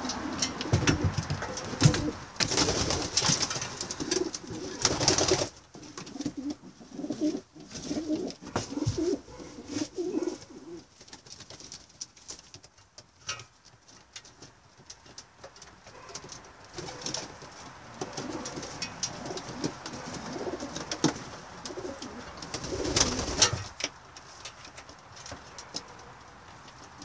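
Homing pigeons cooing in a loft, strongest over the first ten seconds or so. Scattered sharp taps and scuffles run throughout, with louder rustling bursts a few seconds in and again near the end.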